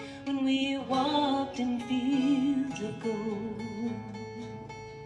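A woman singing a slow melody with vibrato to her own acoustic guitar accompaniment; the voice eases off near the end while the guitar carries on.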